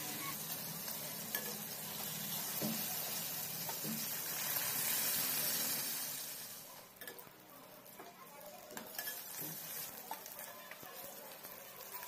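Aar fish pieces sizzling as they deep-fry in hot mustard oil in a kadai, with a spatula tapping and scraping as they are turned. The sizzle is loudest about five seconds in, then dies down about seven seconds in, leaving scattered light taps against the pan.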